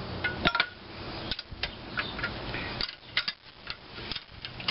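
Irregular metallic clicks and clinks of a steel wrench on the nuts of a bolted-on fixture plate as they are snugged up, some in close pairs.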